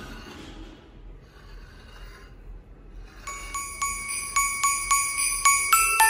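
Background music: a track fades out to a near-quiet lull, then about three seconds in a Christmas-style track begins with jingling bells and bright, evenly repeated chime notes that grow louder.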